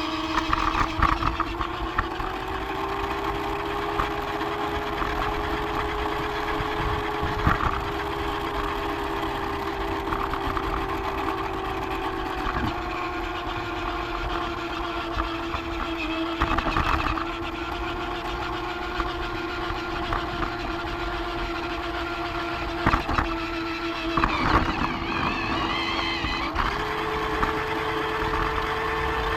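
Small electric motor of a Lego toy train running with a steady whine. Its pitch steps up a few seconds in, drops back about midway and rises again near the end, with a few scattered clicks.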